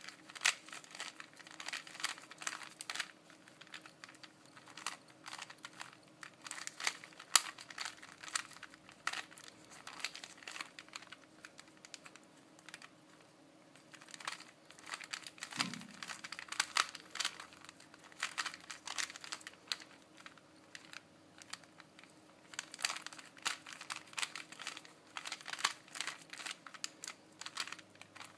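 A Rubik's Cube being turned by hand: quick bursts of plastic clicking as its layers are twisted, with a pause of a few seconds about halfway through.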